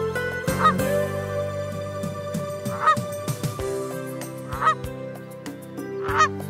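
A bird calling, four short calls about two seconds apart, over background music with held notes.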